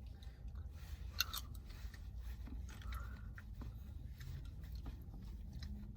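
Quiet close-up eating sounds: ice cream being chewed, with scattered small clicks and wet smacks.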